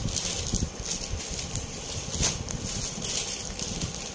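Plastic bags and clothing packets rustling and crinkling as they are handled, with one louder crinkle a little past halfway.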